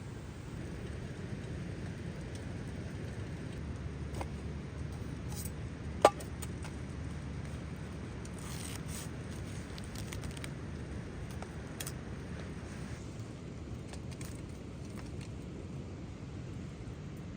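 Steady rain noise with scattered light clicks throughout, and one sharp crack about six seconds in.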